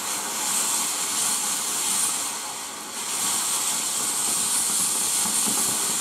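Garden firework fountain burning, hissing steadily as it sprays sparks, dipping briefly about two and a half seconds in.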